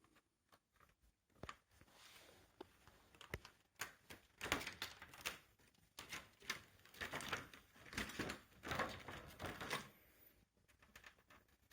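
Replacement LED backlight strips being handled: faint, irregular light clicks, taps and rustling, busiest through the middle.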